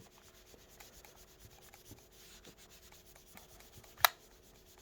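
Faint rubbing of a damp melamine foam eraser pad wiped over the plastic shell of a game controller, with light ticks and one sharp click about four seconds in.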